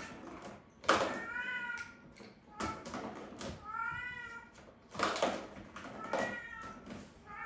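Turkish Van cat meowing: three drawn-out high meows, each rising then falling in pitch, roughly two and a half seconds apart, with another starting at the end. Sharp knocks come about a second in (the loudest sound) and again between the meows.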